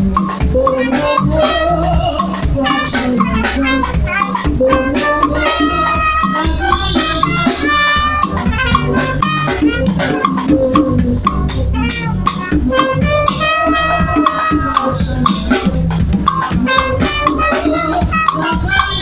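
Live band music led by an acoustic drum kit playing a busy groove with cymbals, over congas and pitched keyboard lines.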